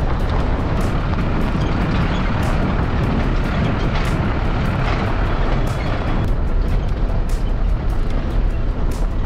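Car driving over a rough dirt road: a steady low rumble of engine and tyres, with frequent small knocks and rattles from the bumps. The hissing part of the noise eases about six seconds in.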